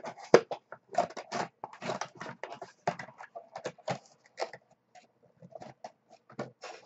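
Packaging of a trading-card pack rustling and crinkling as it is handled and opened by hand: an irregular run of crackles and rustles.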